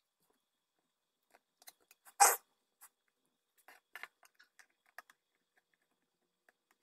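A table tennis bat being handled on a wooden desk: a scatter of small clicks and taps, with one louder short knock about two seconds in.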